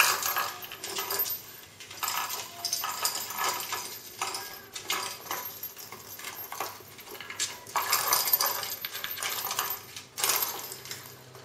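Kittens batting at a box toy with holes on a tile floor: rattling and clattering as the toy is knocked and shoved about, coming in bursts with short lulls between.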